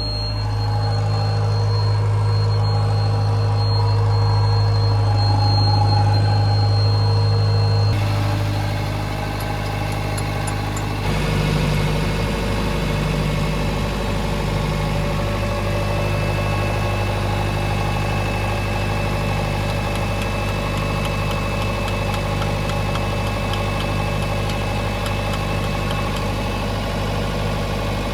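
Heavy diesel engine of a mining machine running steadily. Its note changes about eight seconds in and again about eleven seconds in, after which a slow regular throb recurs roughly every second and a quarter.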